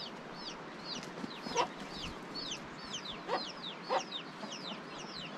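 Domestic chickens clucking, with a steady run of short, high chirps and a few louder calls about one and a half, three and a quarter, and four seconds in.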